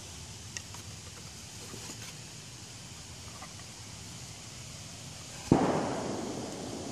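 A sudden thump about five and a half seconds in, then a rustling that fades over about a second: a tabby cat bumping its head against the phone and rubbing its fur on the microphone.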